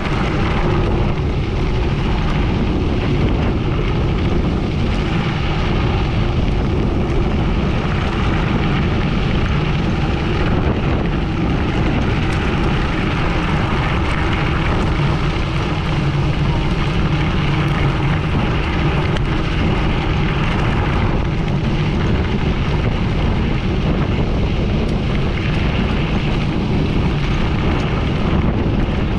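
Wind rushing over the microphone during a fast downhill on a gravel bike, with the tyres rumbling over gravel; a steady, unbroken noise.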